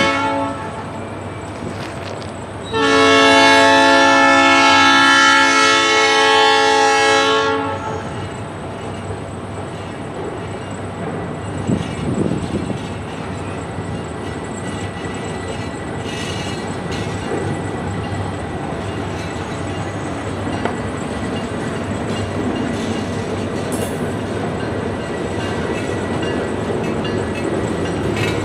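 Locomotive horn sounding a short blast and then a long blast of about five seconds, followed by the steady rumble and clatter of a train rolling by.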